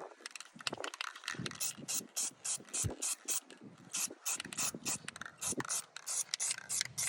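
Aerosol spray-paint can being shaken, its mixing ball rattling in quick, even strokes about four or five times a second.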